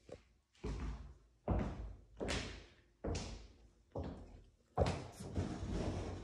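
Sliding closet doors being pushed along their track: a run of about seven sharp knocks and rumbling slides, each starting suddenly and dying away, the last one longer.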